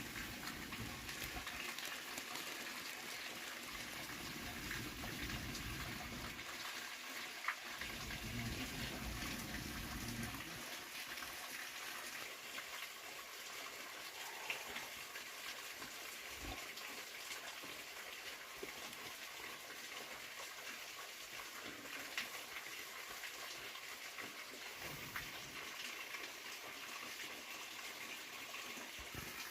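Steady rushing of a waterfall, with a few short sharp clicks over it.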